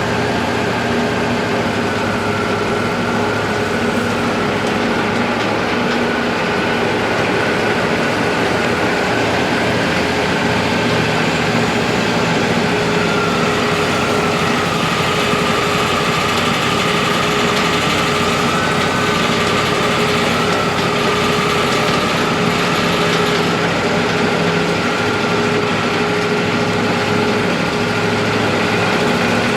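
Wood-Mizer LT40 band sawmill running steadily while sawing a yellow pine log. The machine's note sags a little in pitch about halfway through, then comes back up.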